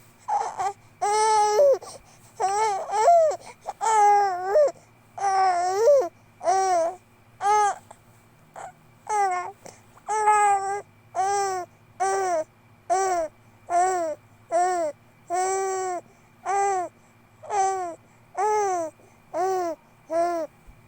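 Two-month-old baby fussing: a steady string of short, loud cries, a little more than one a second, each rising then falling in pitch.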